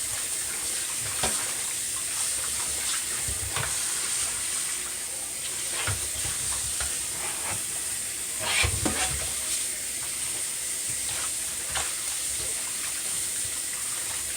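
Raw chicken pieces being washed by hand in a bowl of vinegar water: steady splashing and swishing, with a few sharper splashes or knocks against the bowl, the loudest near nine seconds.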